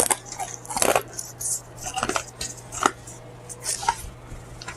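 Short clinks and taps of dishes and cutlery being handled, about half a dozen separate sounds spread over a few seconds.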